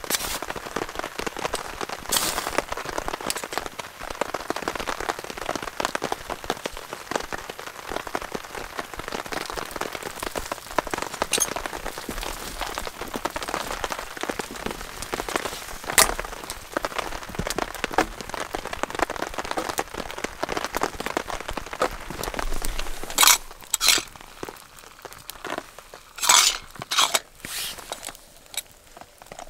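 Steady rain patter made of many fine drips. In the last few seconds it thins out and is broken by louder sharp cracks and clicks from a small campfire of twigs and wood.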